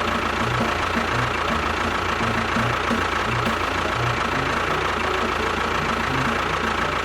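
An engine running steadily at idle, with an even low knocking pulse and a thin steady whine above it.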